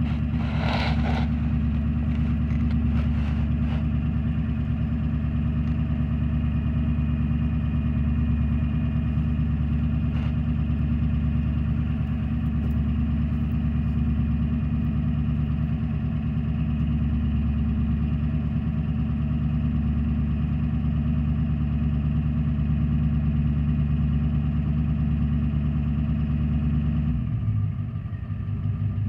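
Ford E350's 7.3 L Power Stroke V8 turbo-diesel, fitted with a Holset HX50 turbo and dual 5-inch exhaust, idling steadily at the tailpipes. Near the end the engine note changes and the level dips briefly.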